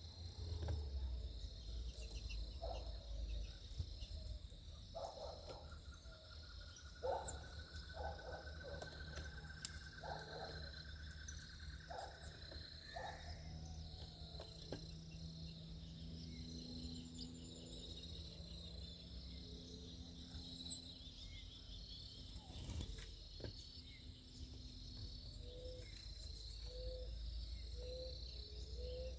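Steady, high-pitched chirring of insects such as crickets over a low background rumble, with a run of short repeated notes near the end, likely a bird calling.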